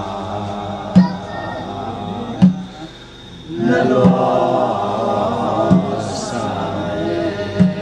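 A group of elderly men and women singing a traditional Zo folk song together in a slow chant, breaking briefly about three seconds in. A sharp beat sounds about every one and a half to two seconds under the voices.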